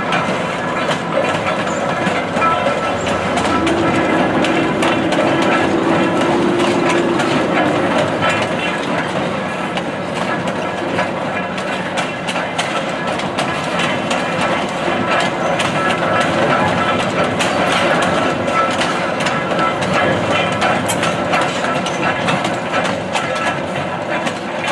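A 0-6-0 steam locomotive dressed as Thomas the Tank Engine rolls past with a passenger coach: a steady running rumble with many clicks of wheels over rail joints. A steady low tone sounds for a few seconds, starting about three seconds in.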